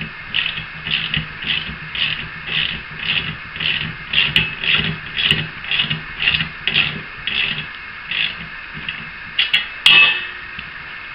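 Socket ratchet wrench working the half-inch nut and bolt that join the cart's main frame, rasping in regular strokes about twice a second. It stops with a couple of sharp metallic clicks near the end.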